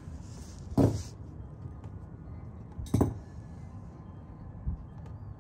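Two sharp metallic clinks about two seconds apart, metal pieces knocking together, over a low steady background.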